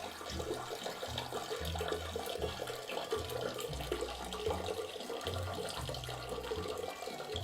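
Water running steadily from a bathroom tap into a sink.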